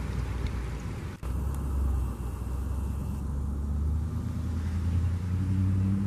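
Steady low rumble of a motor vehicle engine running, with a low hum coming in about two-thirds of the way through. The sound cuts out for an instant about a second in.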